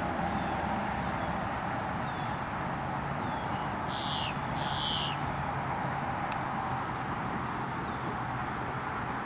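Two short, harsh bird calls falling in pitch, about four and five seconds in, with fainter chirps around them, over a steady outdoor background hum.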